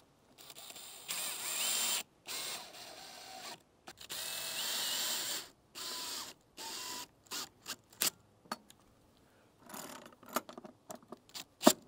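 Cordless drill driving screws into the wooden eave in about five short runs, its motor pitch rising as it spins up each time. A run of quick clicks follows near the end.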